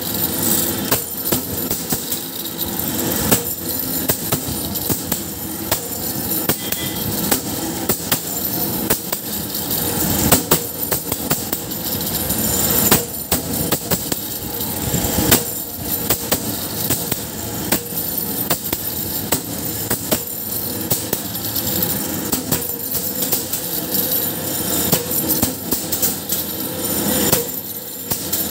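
Round-nut tapping machine running, threading M6 nuts: a dense, irregular metallic clatter of clicks and knocks over a steady mechanical noise.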